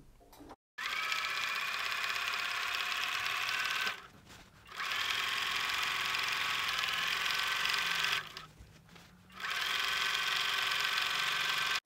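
Bernina 380 sewing machine with a walking foot stitching a binding strip onto a quilt, running at a steady speed. It starts about a second in and stops briefly twice, for under a second each time, before running on again.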